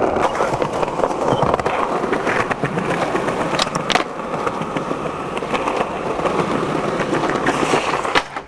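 Skateboard wheels rolling over rough pavement, a steady gritty rumble, with a few sharp clacks of the board about four seconds in and again near the end.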